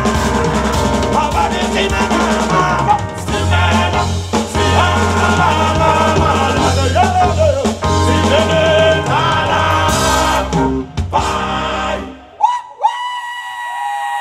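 A band plays with drums, a steady bass line and singing. About twelve seconds in, the band stops and a long held high note rings on alone, sliding down as it fades.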